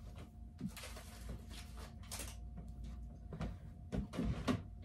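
Scattered knocks and clatters of things being handled in a kitchen, a little busier near the end, over a faint steady hum.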